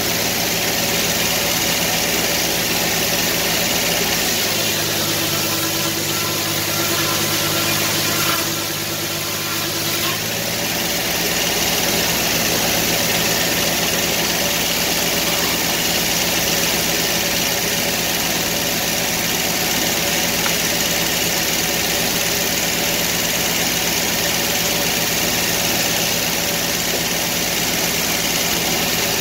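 Portable sawmill's engine running steadily. Its tone shifts for about six seconds from roughly four seconds in, then returns to the earlier sound.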